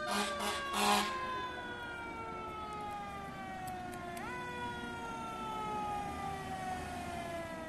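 Fire truck siren wailing: its pitch rises sharply, then slowly falls over a few seconds, rising again about four seconds in. Two short noisy bursts sound in the first second.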